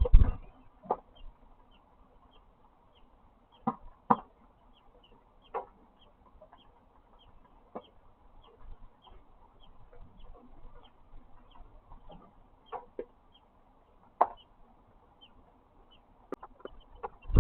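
A bird peeping: short, high peeps repeating about twice a second, with scattered knocks and rustles, the loudest right at the start.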